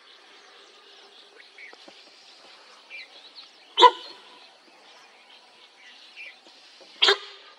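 Sambar deer giving its alarm call, a short loud honk, twice about three seconds apart, the second near the end, at a tiger on the move. Faint bird calls and insect hiss underneath.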